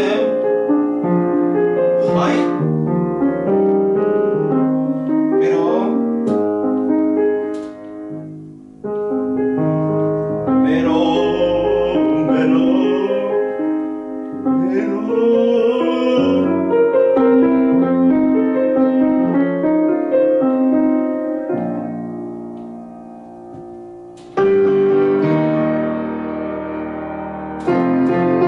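Grand piano being played: a slow, lyrical piece of melody over sustained chords. It thins out twice into quieter passages, and loud chords are struck again about nine seconds in and near the end.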